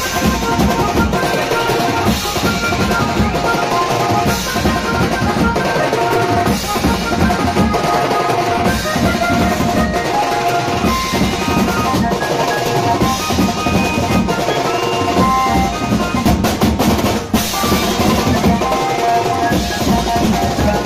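Maharashtrian banjo party band playing a dance number: steel drums, a drum kit and cymbals beat out a dense, driving rhythm under a steady melody line.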